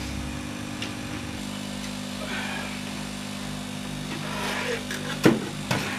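Steady electrical hum from bench equipment, with handling noise from a laptop motherboard being moved on a wooden workbench and two sharp knocks near the end.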